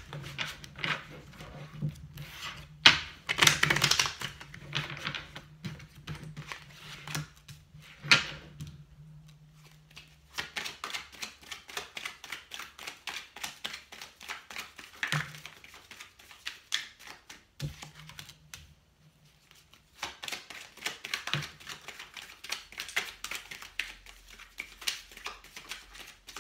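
A deck of tarot cards being shuffled by hand: quick runs of soft card clicks and slaps, with a few louder snaps in the first several seconds and two brief pauses between runs.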